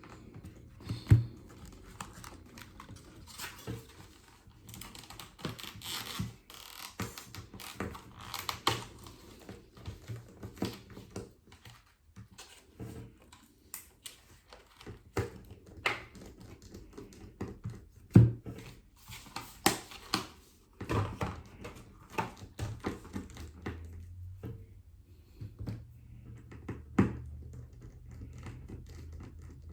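Irregular small clicks and taps of an iFixit precision screwdriver working tiny screws out of the metal shield plate inside an iPad Mini, with a few louder knocks about a second in, at around the middle and near the end.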